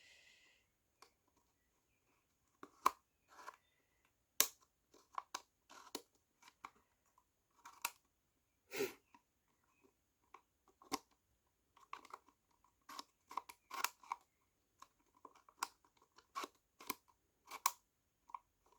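Laser-cut wooden slide-puzzle tiles being pushed around in their frame: a long run of light, irregular clicks and knocks, coming several a second in places.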